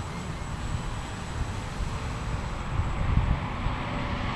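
Quadcopter with Walkera MX400 motors and props buzzing steadily in flight, with wind rumbling on the microphone.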